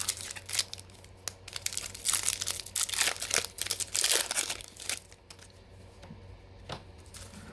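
Foil wrapper of a Topps baseball card pack crinkling and tearing as it is pulled open, loudest for a couple of seconds in the middle, then a few light clicks near the end.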